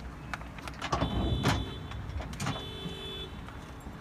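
Knocks and clunks of a mower deck being handled, over a low steady rumble. A high steady tone comes and goes twice.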